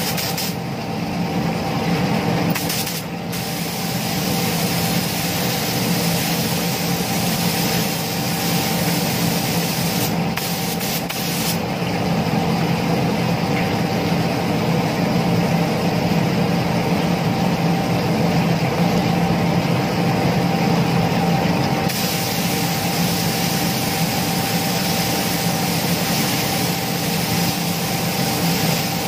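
Gravity-feed spray gun hissing as it sprays a second coat of clear coat onto motorcycle fairing panels, with a few short breaks in the hiss. A steady machine hum runs underneath.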